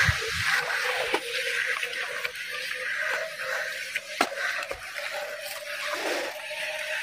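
A few soft footfalls of rubber flip-flops on dry soil, over a steady outdoor hiss with a faint steady hum.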